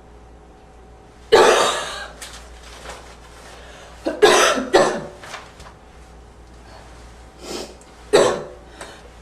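A person coughing with a slight, wheezy barking cough. There is a sharp cough about a second in, a quick cluster of coughs about four seconds in, and a fainter cough followed by a sharp one near the end. Each starts abruptly and trails off.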